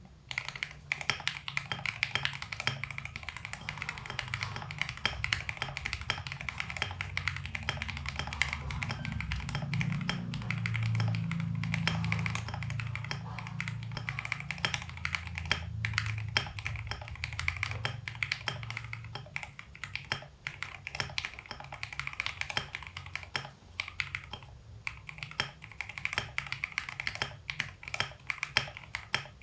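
Continuous fast typing on a mechanical keyboard fitted with thick 1.5 mm PBT XDA-profile keycaps over Gateron Pro Milky Yellow switches. The keystrokes sound deep and muffled, with only moderate ring.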